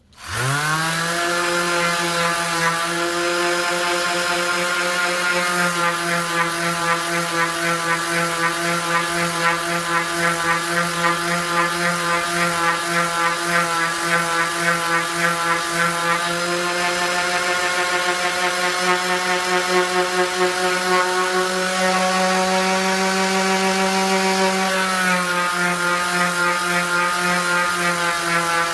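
Bosch GSS 1400 Pro orbital sander's 180 W motor switching on, its pitch rising over the first second, then running at a steady hum while sanding a flat wooden surface.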